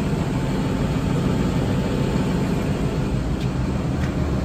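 Diesel engine of a farm machine idling steadily, a low rumble with no change in speed.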